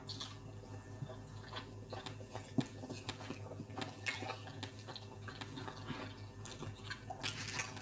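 Close chewing of rice, beans and plantain during fast eating, with scattered light clicks of wooden spoons against plates; one sharper click about two and a half seconds in.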